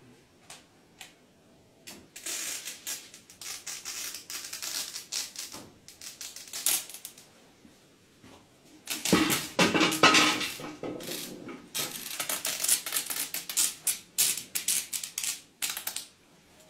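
Rapid rustling and crackling of a cloth sheet being pulled and twisted close to the microphone, a dense run of small clicks and scrapes. It starts about two seconds in, is loudest and fullest a little past the middle, and stops shortly before the end.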